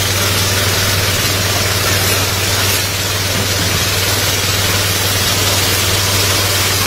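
Engine-driven pump of a hose power sprayer running steadily, with the hiss of disinfectant spraying from the wand.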